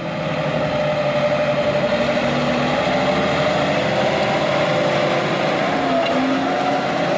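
Massey Ferguson farm tractor's diesel engine running steadily under load as it pulls a planter, swelling in over the first second.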